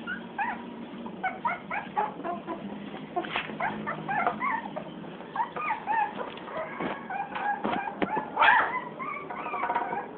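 Several young puppies whimpering and yipping in short, high squeaks that overlap one another, with the loudest burst of yelping near the end.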